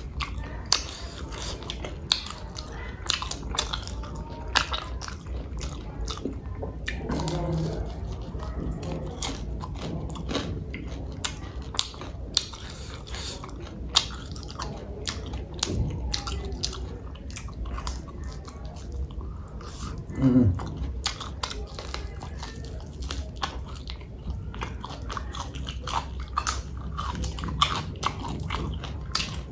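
Close-up eating sounds: chewing and biting into food, with frequent sharp wet mouth clicks. A short voice-like sound comes about a quarter of the way in and a louder one about two-thirds in.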